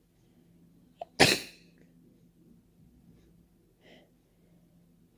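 One loud, wet, uncovered sneeze about a second in, with a brief catch of breath just before it, fading within half a second. A faint breath follows near the end.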